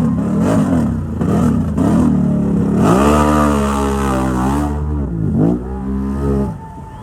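ATV engine revving hard in quick blips, then held at high revs for nearly two seconds, blipped once more and let off near the end.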